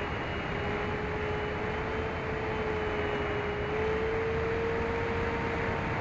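Steady wind rush over an in-flight RC plane with the even whine of its electric motors and propellers, heard from on board; the whine's pitch edges up slightly around the middle.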